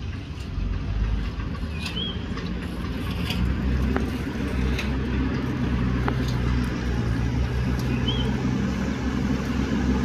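JCB backhoe loader's diesel engine running steadily as it pushes a heap of earth with its front bucket, getting louder about three seconds in as it comes closer. Two short high chirps sound over it, about two seconds in and again near eight seconds.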